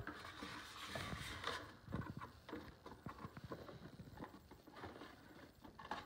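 Handling noise of toy packaging: a run of light, irregular knocks and clicks with some rustling as a styrofoam insert, cardboard box and plastic toy truck are handled.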